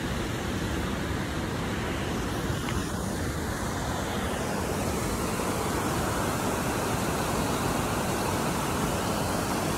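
Small waterfall and mountain creek rushing steadily, a little louder from about halfway through.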